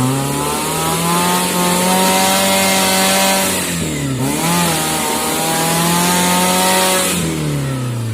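Suzuki Jimny 4x4's engine held at high revs, dipping briefly about four seconds in and climbing back, then the revs fall away near the end.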